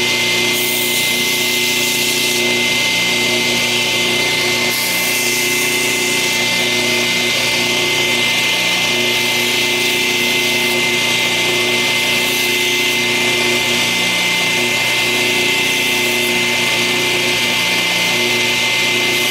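Electric grinder running steadily with a high hiss of steel on the abrasive and a steady whine, as a Schrade lockback knife blade is ground to reshape its broken tip.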